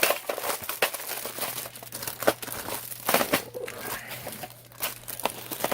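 Plastic packaging crinkling and rustling as items are handled and rummaged through, with scattered sharp clicks and knocks.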